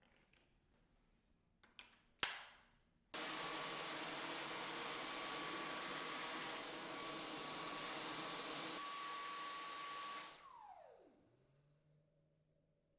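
A couple of clicks, then a Dyson Cyclone V10 cordless stick vacuum switches on abruptly and runs steadily with a high whine for about seven seconds. It then switches off, and the motor spins down with a falling whine.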